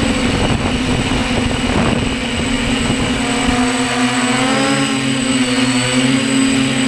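Hexacopter's six electric motors and propellers running in flight, heard up close from a camera on the frame: a steady multi-toned hum whose higher tones waver slightly with throttle. Wind buffets the microphone with a low rumble for the first three seconds or so.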